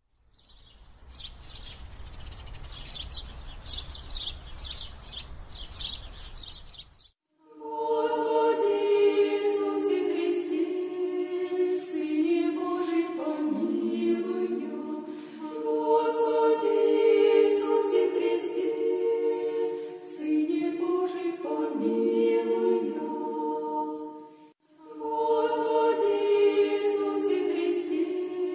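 High chirping repeated a couple of times a second over a low rumble for about seven seconds. Then an unaccompanied Orthodox church choir chants in long held chords, breaking briefly between phrases twice.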